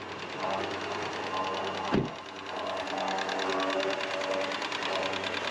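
Cordless electric winch running steadily, a fast even whirring with a rapid fine ticking. There is one sharp thud about two seconds in.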